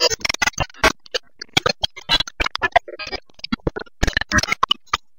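Glitch sound effects of an animated video intro: a rapid, irregular run of sharp clicks and ticks with short gaps between them.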